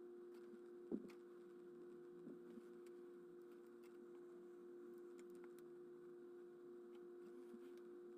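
Near silence: a faint steady electrical hum, with a light click about a second in.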